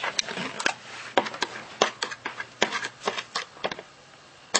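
Irregular clicks and taps of hard plastic ride-on toy parts being handled and fitted together by hand, with a short lull near the end.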